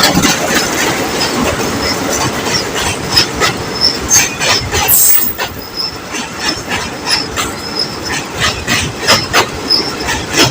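Train running over a river bridge, its wheels clattering over the rail joints in quick, irregular clicks over a steady rumble. There is a brief high-pitched screech about five seconds in.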